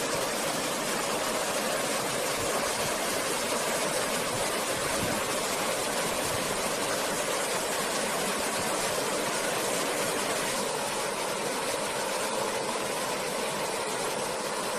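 Rushing water of a river pouring over rocks in small cascades, a steady even rush with no change.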